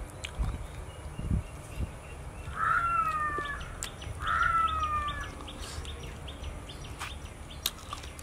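A pet animal crying twice, each a drawn-out, slightly falling call about a second long, a second and a half apart.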